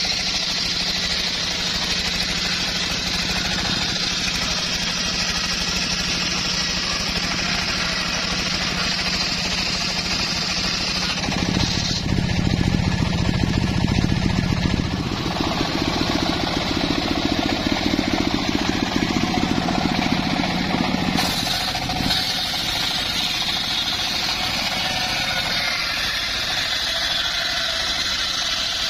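Petrol-engined saw running at full speed as it cuts through a teak log, its tone and loudness shifting abruptly several times.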